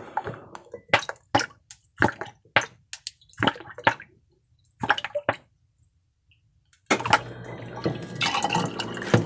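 Lemon juice poured into a glass mason jar: a string of short drips and clicks, a pause, then a steady pour starting about seven seconds in.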